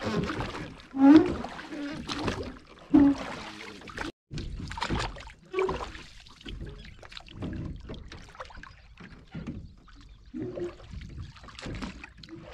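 A wet multi-hook fishing line hauled by hand over the side of a wooden boat: irregular knocks and rustles of line and hooks against the hull and deck, loudest about a second and three seconds in.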